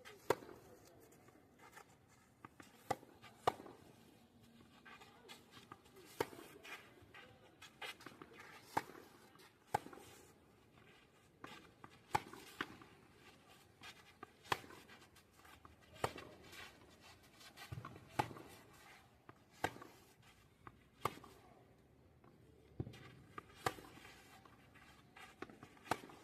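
Tennis ball struck with a racket again and again: sharp pops about every second or so, some in close pairs about half a second apart.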